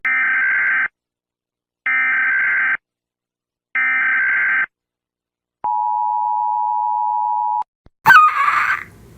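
Emergency Alert System alarm: three short, buzzy data bursts about a second apart, then a steady two-tone attention signal for about two seconds. A sudden loud burst comes near the end.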